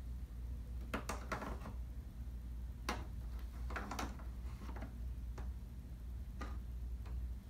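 Scattered hard plastic clicks and taps, about ten of them, as a Samsung TV's plastic stand leg is handled and fitted against the slot in the TV's plastic back panel, over a low steady hum.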